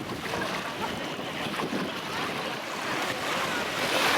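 Sea surf washing onto the beach, a steady rush of water that swells near the end as a wave breaks.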